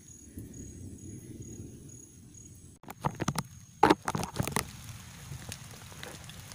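Rain falling on a pond, a fine steady patter, broken about three seconds in by a cluster of sharp close knocks and clicks that are the loudest thing heard.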